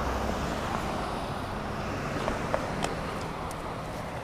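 Steady road and traffic noise that fades slowly, with a few light clicks about two to three seconds in.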